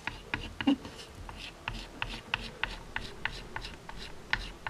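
Chalk scratching on a small chalkboard sign as a number is written and traced over, in short strokes about four a second.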